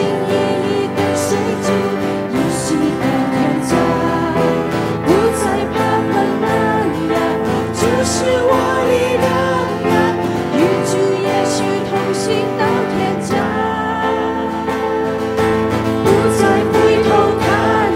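A Chinese worship song sung by the congregation and worship band, with singers over electric guitar and keyboard accompaniment.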